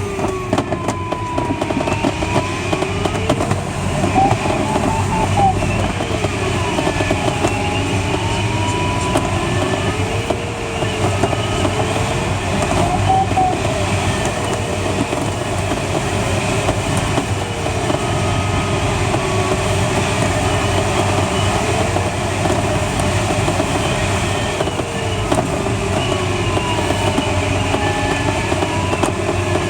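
Steady rush of airflow around the cockpit of a Schleicher ASK21 glider in flight, with a thin electronic tone sliding slowly up and down in pitch, typical of the glider's audio variometer.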